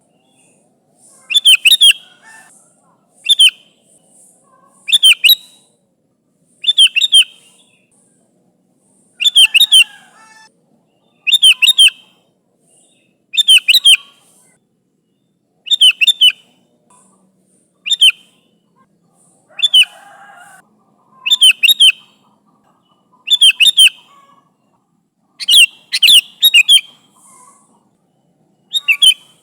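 Sooty-headed bulbul (kutilang) calling loudly. Short phrases of a few quick, bubbly notes repeat about every two seconds, with brief silences between them.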